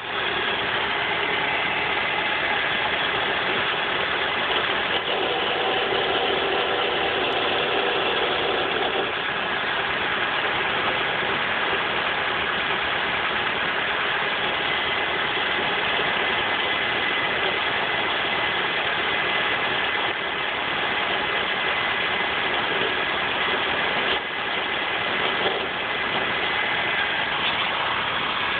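A car's engine running steadily with a persistent rattle.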